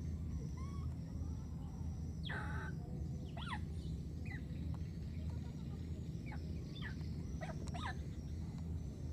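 Several short high-pitched animal calls, each falling sharply in pitch, come one after another through the middle and later part, over a steady low rumble.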